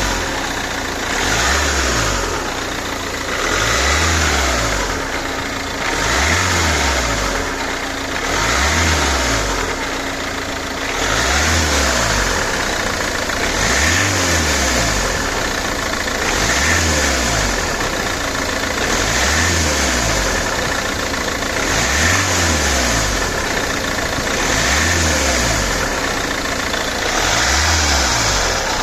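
Ford Kuga Mk1's 2.0 TDCi diesel engine revved and let fall back, over and over, about every two and a half seconds, with a hissing rush in each cycle. It is run this way to bring out a suspicious noise that appears only on deceleration.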